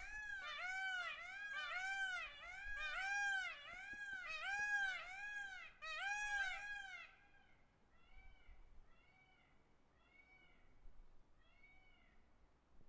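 Peacock calling a fast series of short calls that each rise and fall in pitch, about two a second, for about seven seconds, then fainter calls about once a second.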